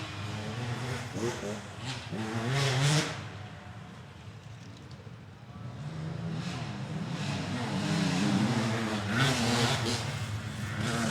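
Motorcycle engine revving. The revs climb to a loud peak about three seconds in, drop away and quieten, then build again and stay high through the second half.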